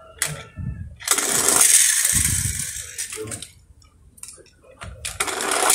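Toy car's wheels rolling down a plastic ramp and across rough concrete: a loud rolling rattle starting about a second in that fades over about two seconds, then a second rolling run starting near the end.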